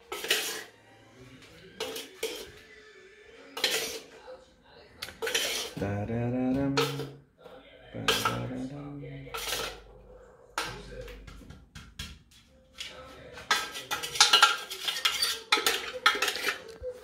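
Kitchen bowls and utensils being handled: a series of sharp clinks and knocks of dishes and spoons, coming thickest near the end.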